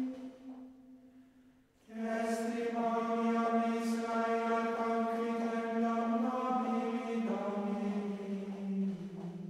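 Slow, chant-like vocal music: long sustained sung notes. One phrase dies away at the start, and after a short pause a new long phrase begins about two seconds in, held with a few slow steps down in pitch near the end.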